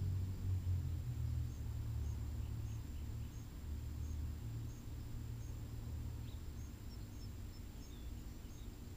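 Garden ambience: a low steady rumble that eases off slightly, with faint scattered bird chirps.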